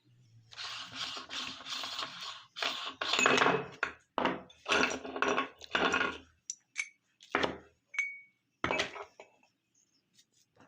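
Meat grinder crushing Oreo cookies: a run of gritty crunching and grinding in repeated bursts, then a few separate metallic clicks and one short ringing clink near the end.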